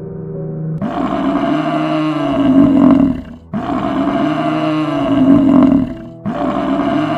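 A large animal giving three long, drawn-out roaring calls, each lasting about two and a half seconds.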